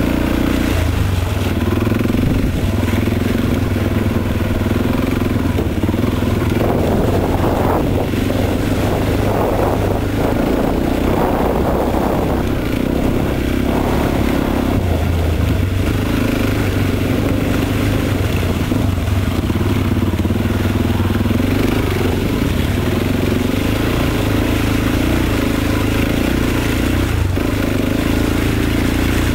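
Single-cylinder four-stroke dirt bike engine running close to the microphone, its note rising and falling as the rider works the throttle and gears over a muddy trail. A rougher, rattling stretch comes partway through.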